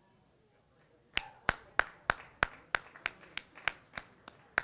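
Steady rhythmic handclaps, about three a second, starting about a second in.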